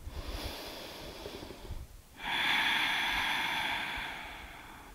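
A woman breathing deeply close to the microphone: a quieter inhale, then a little after two seconds a louder, long exhale that fades out.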